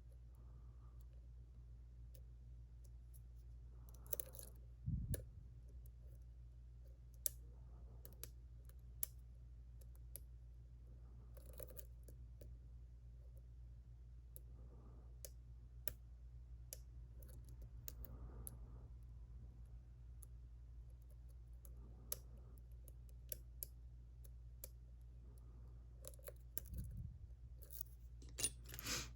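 Faint, scattered clicks and scrapes of lock picks working the pins of a JPM Surf six-pin sidebar lock, over a steady low hum, with a few louder clicks about four seconds in and near the end.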